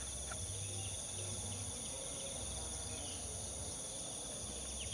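Steady high-pitched drone of insects in the trees, with a low background rumble. Right at the end a rapid run of short chirps, about six a second, begins.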